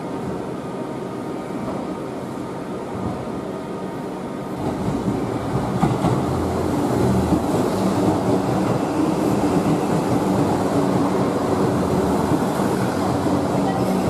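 Diesel-powered limited express train on the move: a steady rumble of engine and wheels on rail. It grows louder about five seconds in and stays loud as the cars roll past close by at a platform.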